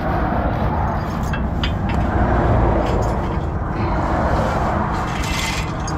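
Motorway traffic going past: a steady low rumble with rushing swells as vehicles pass.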